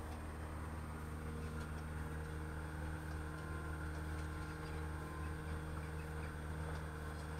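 Engine of an Optimas H88 paving-stone laying machine running steadily as the machine drives and positions its clamp, a low even hum without changes in pitch.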